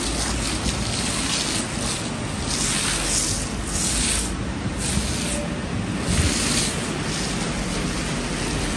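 Steady rushing hiss of foam spraying from a self-service car-wash foam brush as it scrubs the scooter's bodywork. The hiss swells and eases every second or so.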